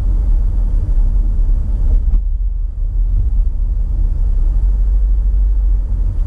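Steady low road and engine rumble of a car driving along, with a single faint click about two seconds in.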